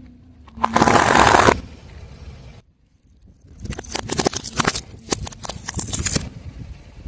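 Objects being crushed under a car tyre: a loud burst of crunching about a second in, then a run of crackles and snaps from about three and a half seconds to six seconds.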